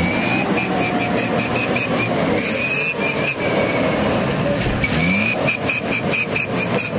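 Vehicle siren sounding in rapid high-pitched pulses, each run opening with a short rising note, heard three times over the rumble of vehicle engines.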